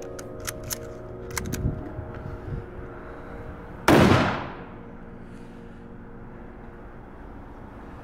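A single rifle shot about four seconds in, sharp and loud, with a short echo trailing off; a few faint clicks come before it.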